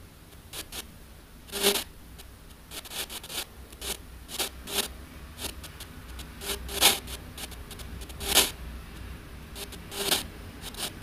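Irregular short bursts of scratchy, hissing noise over a low steady hum, the loudest about 2, 7, 8.5 and 10 seconds in.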